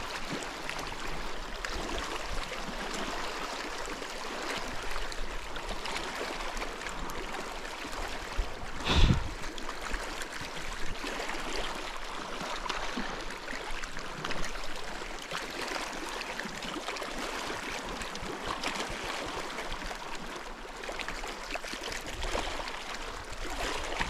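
Steady gurgling of running water, with one short thump about nine seconds in.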